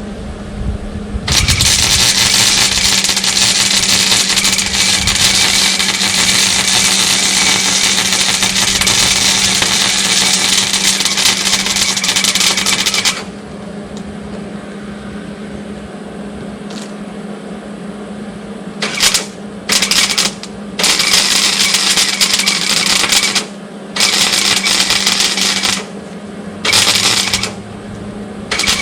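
Hobart 140 MIG welder arc crackling as it lays build-up weld beads: one long bead of about twelve seconds, then a run of short bursts of one to two seconds each. A steady low hum runs underneath.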